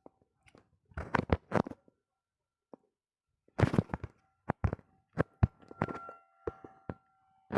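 Irregular thumps and scuffs close to the microphone, coming in short clusters with silence between them. A faint steady tone sounds behind them in the second half.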